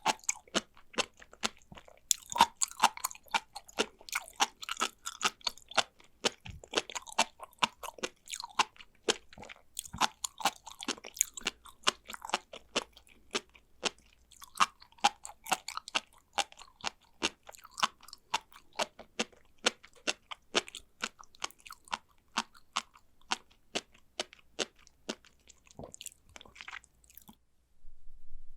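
Chewing sea grapes: a dense run of small, crisp pops and crackles as the bead-like seaweed bursts between the teeth, stopping about a second before the end.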